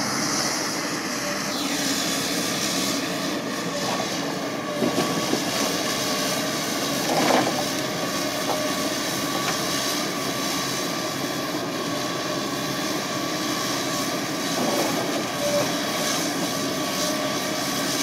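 JCB JS200 LC hydraulic excavator's diesel engine running steadily under working load with hydraulic whine as the grapple swings and lifts logs. A high whine falls in pitch about a second and a half in, and a few short knocks come through, the loudest about seven seconds in.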